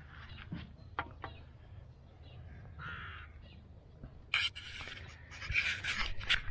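Harsh, cawing bird calls: one short call about three seconds in and a denser run of calls near the end, with a sharp clatter just after four seconds.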